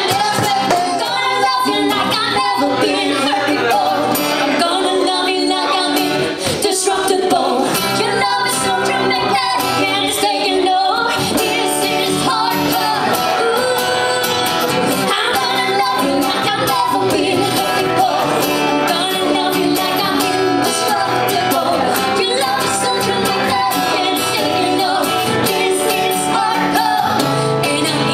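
Live acoustic performance: a woman singing to a strummed acoustic guitar.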